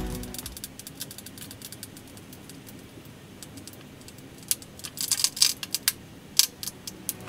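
Faint hiss with a scatter of small, sharp clicks and ticks, bunched together in the last third.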